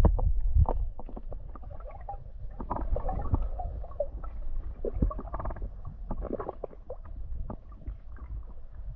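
Muffled underwater sound in a creek pool: a low rumble with scattered clicks and knocks, louder in the first second.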